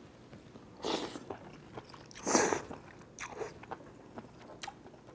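A person eating mul-naengmyeon cold noodles with chopsticks: three short, noisy eating sounds about one, two and three seconds in, the middle one loudest, with small clicks between.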